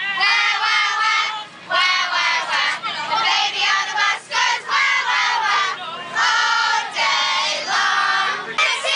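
A group of children's voices singing and shouting together in loud, high-pitched phrases, breaking off every second or so.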